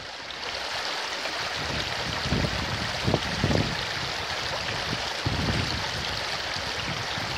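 Small rocky mountain stream running over stones, a steady rushing babble of water, with a few brief low rumbles mixed in.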